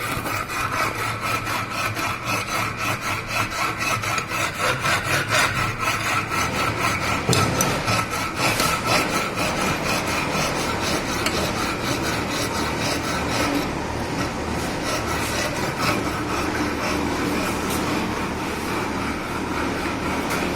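Hand file rasping back and forth across a metal workpiece in even strokes, about two a second at first and then faster. In the last part it gives way to a steadier grinding noise.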